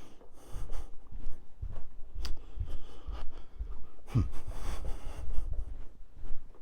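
Irregular rubbing and scraping strokes on carpet pile, with soft low thumps, as the carpet is worked by hand.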